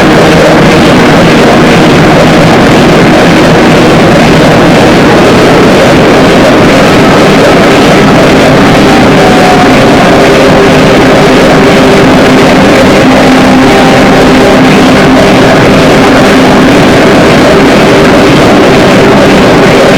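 Harsh noise music: a dense, distorted wall of noise at full loudness, with a few droning held tones underneath it.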